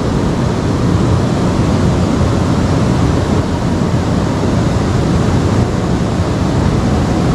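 Steady loud rushing of river water.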